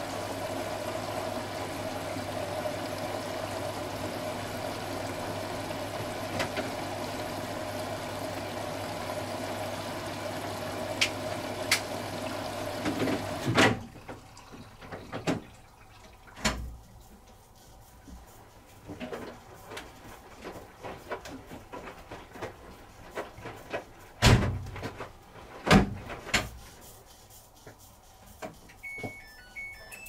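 Hoover H-Wash 300 Plus washing machine taking in water: a steady rush of water with a low hum, which cuts off suddenly about halfway through. After that the drum tumbles the wet load, with scattered soft thuds and sloshes.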